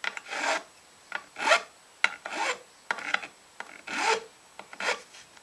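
A hand file drawn along the fret ends at the edge of a guitar fretboard, about eight or nine separate strokes at an uneven pace: dressing the fret ends flush with the fingerboard edge.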